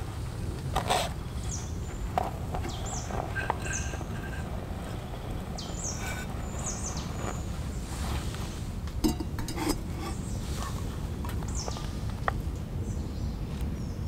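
Birds chirping in short, quick falling notes over a steady low rumble, with scattered small clicks and rustles as a paper coffee filter is handled with a multitool's pliers over an enamel mug.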